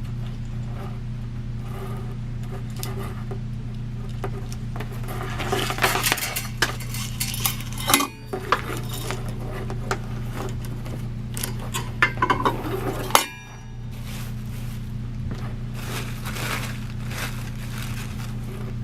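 Metal ceiling-fan parts and hardware clinking and rattling as they are handled and fitted by hand, with a burst of sharp clatter in the middle, over a steady low hum.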